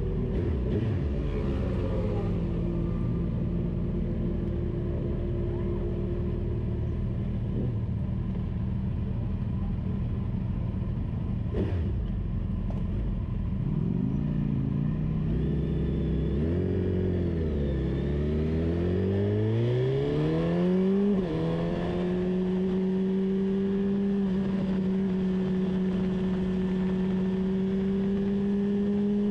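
Car engine running at low, steady revs, then accelerating about halfway through, its pitch climbing and dropping back with gear changes. It then settles into a steady drone that creeps slowly higher.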